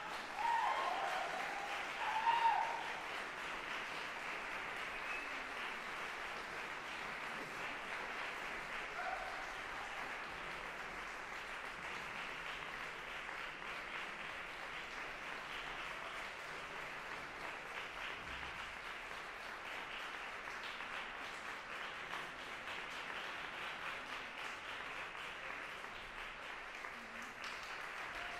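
Audience applause in a concert hall, breaking out suddenly and then carrying on steadily. A few voices call out in the first couple of seconds.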